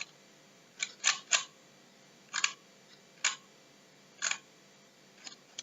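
Computer mouse clicking: about half a dozen sharp single clicks at irregular spacing, a couple of them in quick succession.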